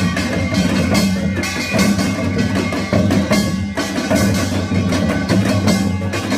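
Korean pungmul percussion playing a Yeongnam nongak rhythm: a steady, dense run of fast drum and gong strokes over a low ringing hum.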